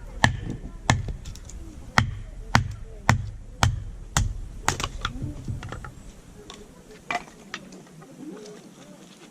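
Repeated sharp knocks, about two a second, giving way after about four seconds to lighter, irregular taps and clicks.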